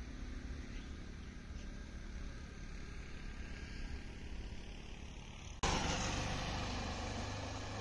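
Motorcycle engine running steadily on the road. About five and a half seconds in, the sound jumps suddenly to a louder, even noise spread across the range.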